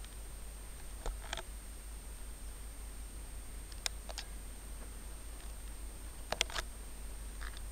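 Steady low background rumble with a few short clicks that come in pairs, a quarter second apart: about a second in, near the middle and past six seconds in. The clicks fit a handheld camera being gripped and shifted.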